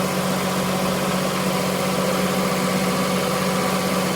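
A boat's generator running steadily, heard up close, with a strong even hum.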